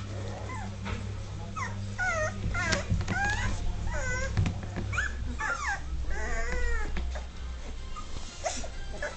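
Dogue de Bordeaux puppies, about two and a half weeks old, crying in a string of short, high-pitched squeals that bend up and down in pitch.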